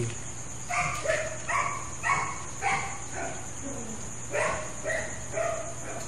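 A dog barking about ten times in a quick run, roughly two barks a second, over a steady high chirring of insects.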